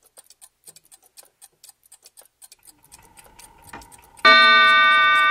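Soft, rapid clock-like ticking, about four a second. About four seconds in, a single loud bell-like chime strikes and rings on, slowly fading.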